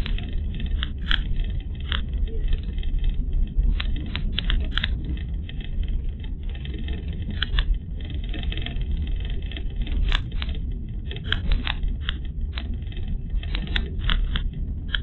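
A car driving, heard from inside the cabin: a steady low rumble of engine and tyres, with frequent irregular clicks and rattles.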